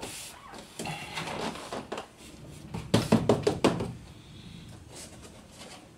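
Plastic door trim panel of an Opel Vectra B being pressed and knocked into place on the door: scattered clicks and rustles, then a quick run of loud knocks about three seconds in as the panel is hit home.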